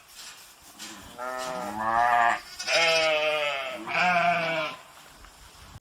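Sheep bleating: about four wavering bleats in quick succession, some overlapping.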